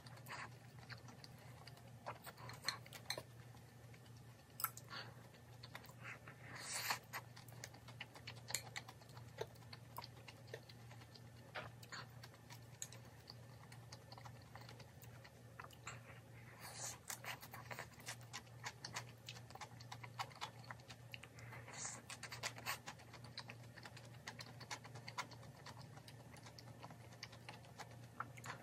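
Eating sounds: light, irregular clicks of a wooden spoon against a small ceramic bowl, with soft chewing of mushy, porridge-like rice.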